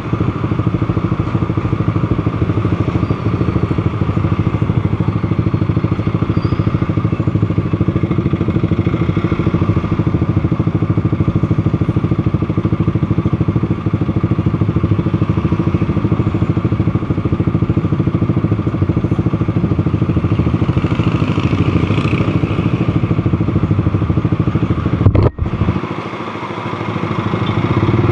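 Motorcycle engine running steadily under way. A sharp click comes near the end, after which the engine sound drops briefly and then picks up again.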